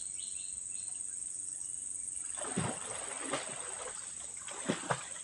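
Pond water splashing and sloshing in irregular short strokes, starting a couple of seconds in, as a person works a fishing net in the water. A steady high drone of insects runs underneath.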